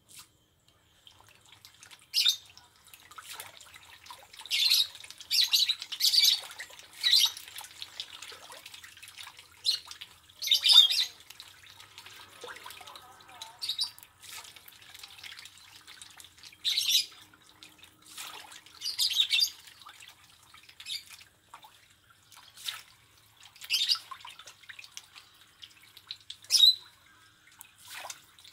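Catfish splashing at the water surface as they snap up floating feed pellets, a feeding frenzy, heard as irregular short splashes every second or two.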